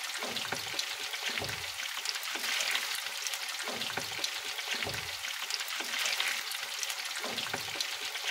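Chicken pieces deep-frying in a pan of hot oil: a steady sizzle full of fine crackles.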